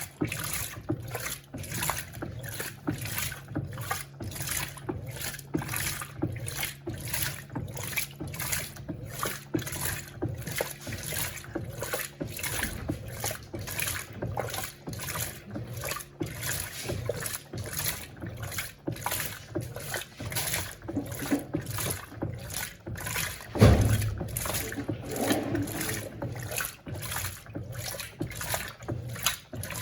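Electrolux Turbo Compacta top-loading washing machine agitating its load in fabric-softener rinse water: a steady motor hum with a regular swish of sloshing water, about twice a second. One louder thump comes about 24 seconds in.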